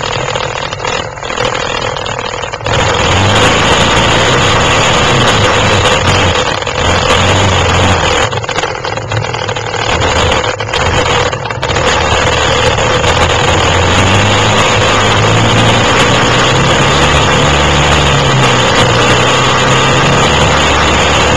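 Quad (ATV) engine running, its pitch rising and falling with the throttle, under a loud rushing noise. It gets suddenly louder a few seconds in.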